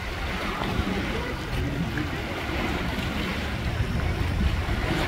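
Wind buffeting the phone's microphone: a steady rushing noise with an uneven low rumble.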